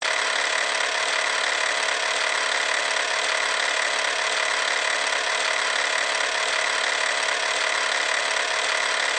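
Engine running steadily at one unchanging speed, a loud buzzing drone.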